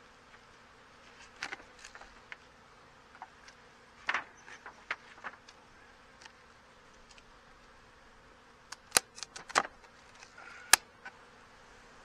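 Honeybees buzzing steadily around an opened hive, with scattered sharp clicks and knocks of a hive tool on the wooden boxes. The loudest knocks come in a cluster near the end.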